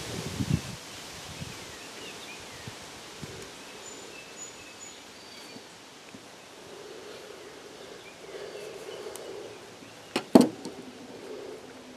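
Quiet outdoor ambience with faint bird chirps while a muskrat is skinned by hand with a knife: a few soft handling noises near the start, a faint low drone in the middle, and two sharp knocks close together about ten seconds in.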